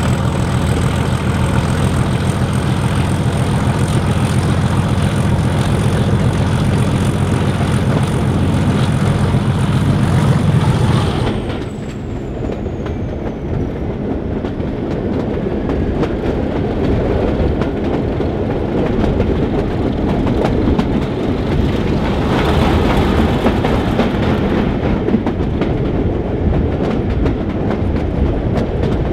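Class 31 diesel locomotive heard from the coaches behind it, its engine working with a deep, steady note and a high whine. About eleven seconds in the engine note drops away and the whine slides down, leaving the coach wheels running over the rails with a rumbling clickety-clack.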